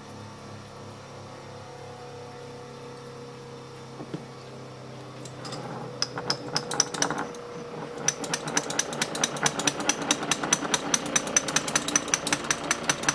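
Light, rapid metal-on-metal taps as steel spokes are driven into a small model flywheel. The taps start scattered about five seconds in, then settle into a fast, even run of about five a second, over a steady low shop hum.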